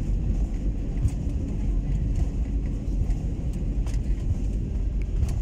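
Airliner cabin noise while the plane rolls on the ground after landing: a steady low rumble of engines and wheels, with a few light clicks.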